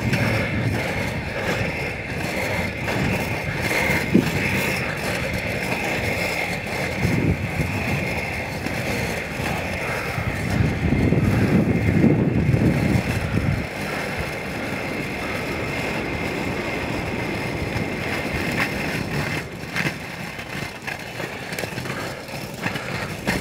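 Inline skate wheels rolling along an asphalt road: a steady rolling rumble with a hiss, growing louder and deeper for about three seconds around the middle.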